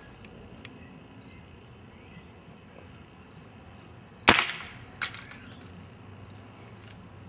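Modified Crosman 2240 .22 CO2 pellet pistol, fitted with a stronger hammer spring and a long steel breech, firing one shot about four seconds in: a sharp crack with a short decaying tail. About a second later come a few lighter clinks with a faint high ring.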